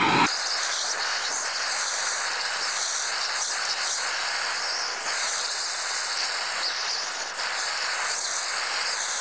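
Hand-held gas soldering torch hissing steadily as its flame heats a copper union on copper pipe, bringing the joint up to soldering temperature. An even, high hiss with no low rumble.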